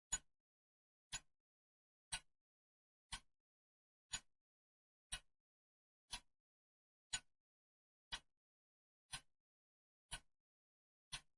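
Clock ticking, one sharp tick about every second with silence in between.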